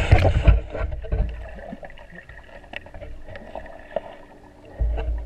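Muffled underwater sound from a GoPro in its waterproof housing moving through the water: a rush of bubbling and sloshing at the start, then dull low thumps and a few sharp clicks, with a louder thump near the end.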